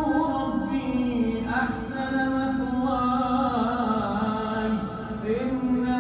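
A man's voice reciting the Quran in slow, melodic tajweed chant, holding long drawn-out notes that bend slowly in pitch.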